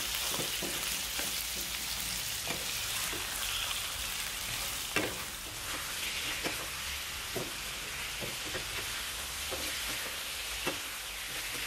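Diced chicken breast sizzling as it fries in hot oil with pounded garlic and chilies in a non-stick frying pan, stirred with spatulas that scrape and tap the pan now and then, one sharper knock about five seconds in.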